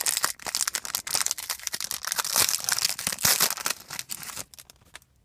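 Plastic foil wrapper of a 2011-12 NBA Hoops trading-card pack being torn open and crinkled in the hands: a dense crackling that dies away about four and a half seconds in.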